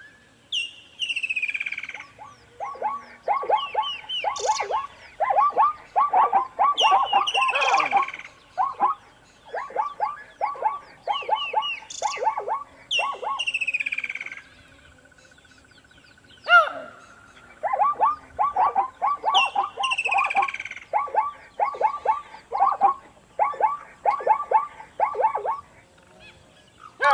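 Plains zebra calling: repeated strings of quick, high yelping barks, each string opening with a falling squeal. There is a pause of about two seconds about halfway through.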